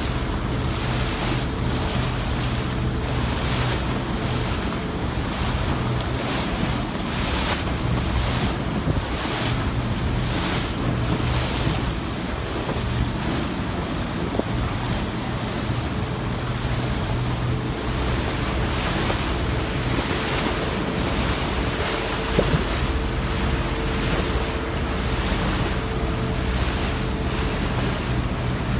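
Wind buffeting the microphone and sea water washing past a boat, in uneven surges, over a steady low drone.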